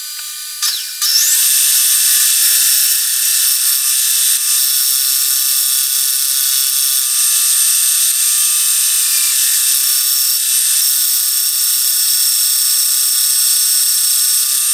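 Milling machine face-milling a cast aluminum vise jaw flat. The sound comes in with a short rising whine about a second in, then holds as a loud, steady, high-pitched whine of several tones while the cutter cuts.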